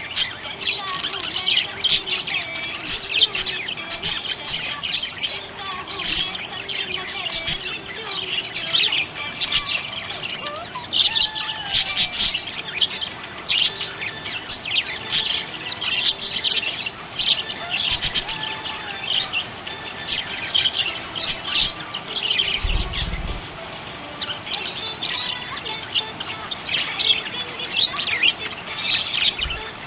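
Budgerigars chirping and warbling without pause: a dense chatter of quick, high twittering calls. About three-quarters of the way through there is a brief low thump.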